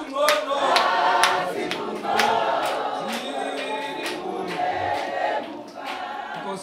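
Choir singing, many voices holding and sliding between notes, with a sharp beat about twice a second.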